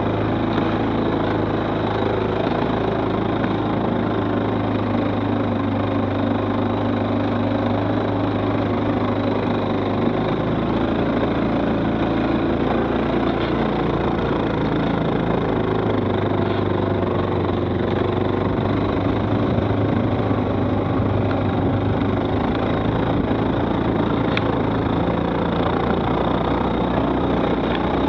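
Stels 800D ATV engine running steadily, with a dense rushing noise behind it. Its drone shifts slightly in pitch about ten and sixteen seconds in.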